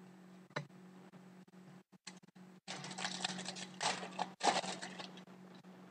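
Trading cards and their packaging being handled by hand: a single click about half a second in, then a crinkly rustling for about two seconds, over a steady low electrical hum.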